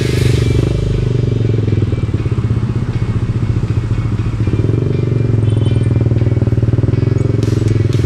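Yamaha Aerox 155 single-cylinder scooter engine running through an aftermarket HGM stainless exhaust at cruising speed, a steady low exhaust drone that eases off a little in the middle.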